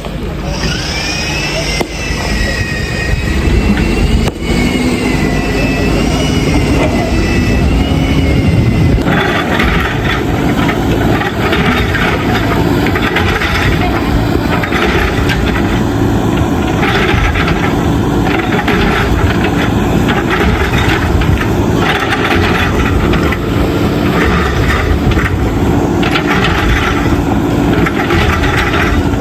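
Diesel engine of a JCB backhoe loader running under load. A high whine rises and wavers over the first several seconds. From about nine seconds in, the sound turns rougher and busier with irregular rattling.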